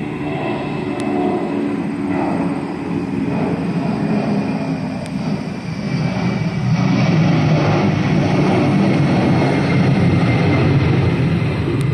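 Airliner engines running as a plane passes: a steady rushing rumble with a faint whine, growing louder a little past halfway.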